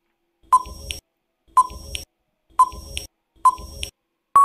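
Quiz countdown-timer sound effect: four short electronic beeps about a second apart, then a long steady final beep starting near the end, marking that the answer time is up.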